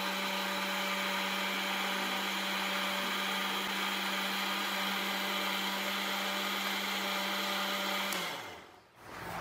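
Electric countertop blender running steadily, puréeing a thin chili-and-vinegar kimchi paste. About eight seconds in it is switched off, and the motor hum falls in pitch as it winds down.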